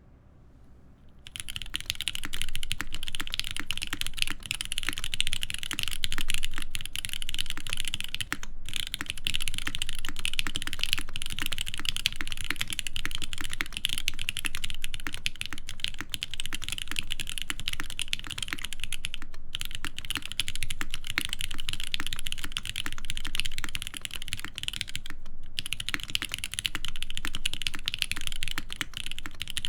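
Fast, continuous typing on an ORI CLS-2//65 mechanical keyboard with GMK keycaps and lubed linear hybrid switches (Cherry tops, Giant v3 stems, Gateron Ink bottoms) in a full aluminum plate. The typing starts about a second in and runs with a few brief pauses.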